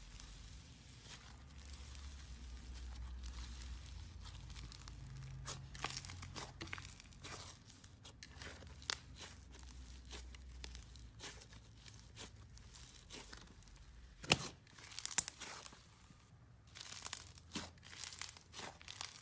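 Slime being squished and stretched by hand: an irregular run of small sticky clicks and crackles, with two louder pops near the end.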